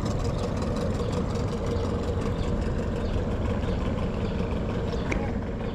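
A boat's motor running steadily at low revs, a constant drone with a fine, even pulsing.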